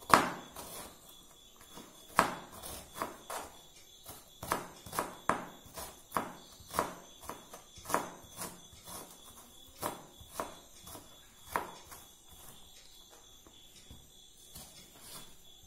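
Kitchen knife dicing an onion on a plastic cutting board: a run of sharp knocks, roughly two a second, each stroke striking the board, growing fainter in the last few seconds.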